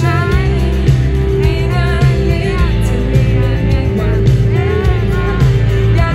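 Live pop-rock band playing through the stage PA, with a woman singing lead over electric guitars, bass guitar and drum kit.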